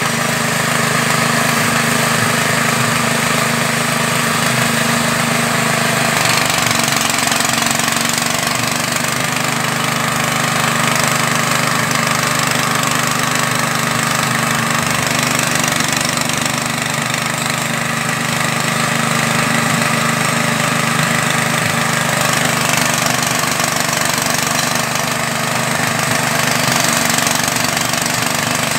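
Small air-cooled engine running steadily while it drives a fish-feed pellet extruder pressing out feed pellets. Its note shifts slightly about six seconds in.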